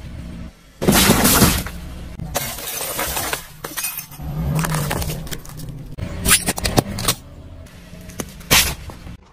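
A car tyre rolling over and crushing objects: a run of separate crunching, cracking and snapping sounds, with glass breaking among them as a wall clock's glass face is crushed.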